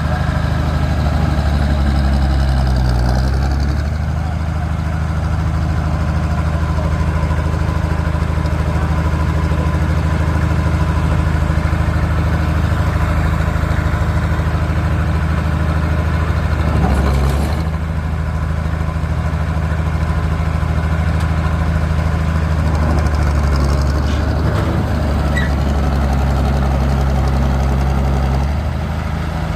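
Heavy machine's diesel engine running steadily, its pitch and level shifting a few times as it is worked.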